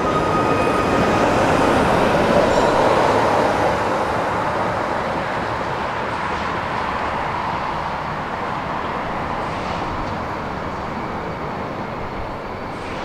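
Tram running on its rails as it pulls past and away. It is loudest about two to three seconds in, then fades steadily as it recedes down the street.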